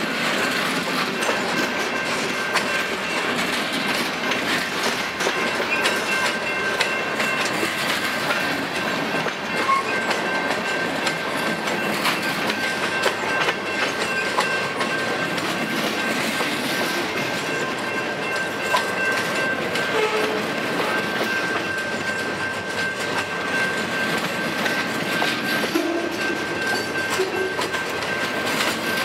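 A freight train's cars rolling steadily past, their wheels clicking and knocking over the rail joints. Gondolas and a covered hopper pass first, then bulkhead flatcars loaded with logs. A steady high-pitched tone runs over the rolling noise.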